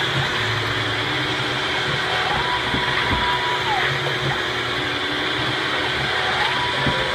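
AmmoBot auto-drive motor cycling a Dillon 1050 progressive press through 7.62 NATO machine-gun brass, with a steady mechanical whir underneath. Each stroke brings a motor whine that rises, holds for about a second and falls away, repeating about every four seconds, with a few knocks from the press between.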